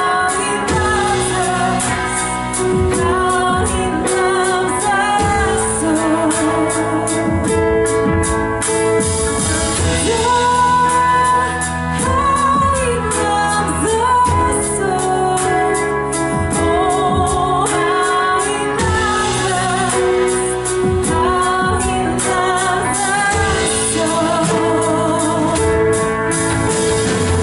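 Live church worship band playing, with sung vocals over a steady drum beat and sustained chords.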